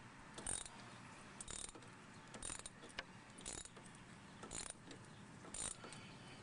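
Wrench ratcheting a 13 mm nut off a sway bar link, a short metallic clicking burst about once a second, stroke after stroke as the nut is slowly unscrewed.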